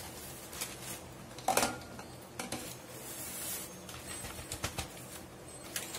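Scattered clinks and knocks of kitchen containers and utensils being handled, the loudest a short ringing clink about a second and a half in.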